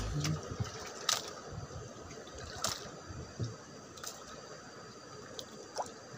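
Water lapping and dripping gently against a small outrigger boat, with a few light clicks scattered through, the sharpest about a second in and near the middle.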